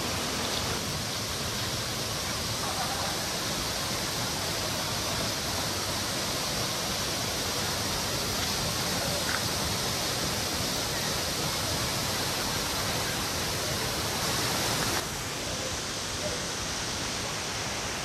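Steady rush of a waterfall and a rocky mountain stream, dropping slightly in level about fifteen seconds in.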